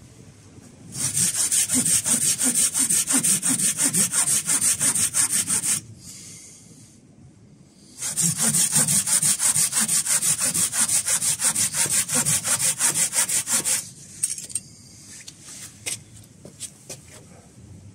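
Hand saw cutting through a green branch in quick back-and-forth strokes, in two bouts of about five seconds each with a pause of about two seconds between them. A few light knocks follow near the end.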